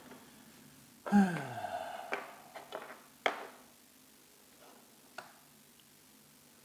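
A man's short, falling groan of effort or frustration about a second in, while he handles the small parts of a model railway wagon chassis. It is followed by a few sharp clicks of the small wheelsets and tools knocking on the workbench.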